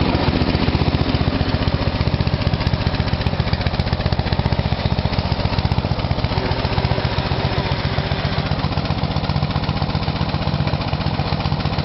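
Westwood T1300 ride-on mower's petrol engine running with a fast, even chug as the mower drives slowly across grass.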